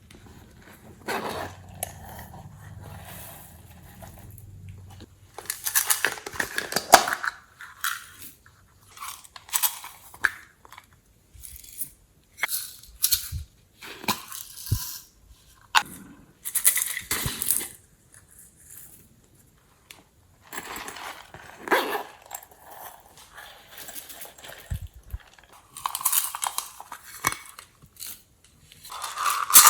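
Glossy slime being squished and worked by hand: irregular bursts of wet crackling and clicking, with short pauses between them.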